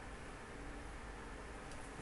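Faint steady hiss of quiet room tone, with a couple of soft ticks near the end.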